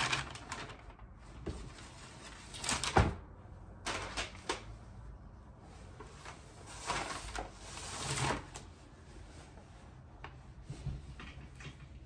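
Crisp taffeta fabric and tissue paper rustling in several bursts as a dress is lifted out of its box and unfolded, with one sharp knock about three seconds in.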